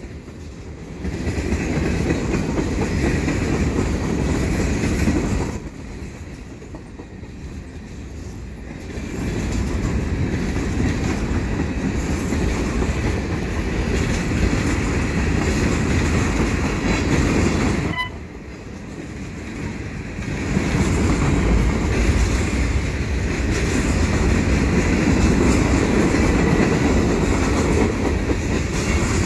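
Freight train cars rolling past close by: a steady rumble and clatter of steel wheels on the rails, easing off quieter twice, around six seconds in and around eighteen seconds in, before building again.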